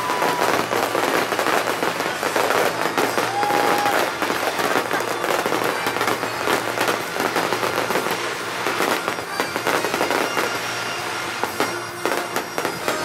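Fireworks going off in a dense, continuous barrage of crackling bangs, with a brief high whistle about three and a half seconds in. The barrage eases slightly near the end.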